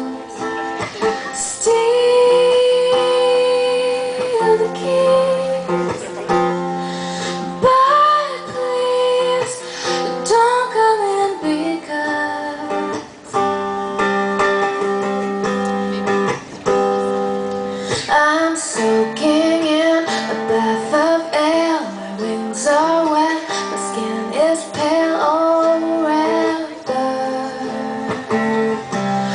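A woman singing a song live, accompanied by guitar.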